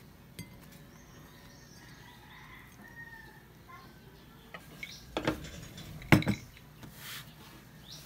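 A ceramic plate and cutlery being handled on a table: a few sharp clinks and knocks, the two loudest about five and six seconds in.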